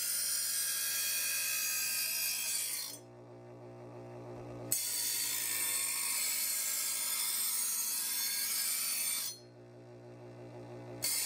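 Chef's Choice 250 electric knife sharpener: a chef's knife edge grinding against the spinning diamond-abrasive discs of the first, motor-driven stage in a hissing rasp, two pulls of about five seconds each. Between pulls the sharpener's motor hums on its own for about two seconds, and each new pull starts with a sharp tick as the edge meets the disc.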